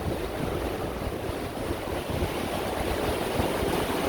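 Sea waves breaking and washing on the shore, a steady rushing surf with wind buffeting the microphone.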